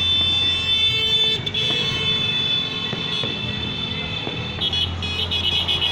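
New Year's noise: several horns blaring steady high tones together, pulsing in short blasts near the end, with a few faint firecracker pops.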